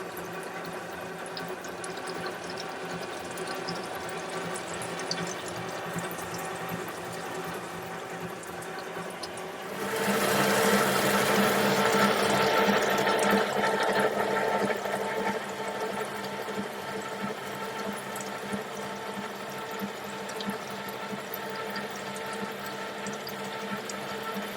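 Nihon Kikai NDH-1200 gear hobbing machine running, a steady hum made of several held tones. About ten seconds in, a louder rushing noise joins and fades back after about five seconds.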